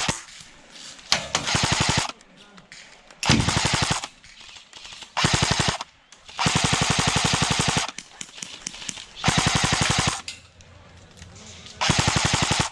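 Airsoft electric rifle firing full-auto in short bursts, seven of them, each a rapid even rattle of shots. The longest burst comes around the middle and runs about a second and a half.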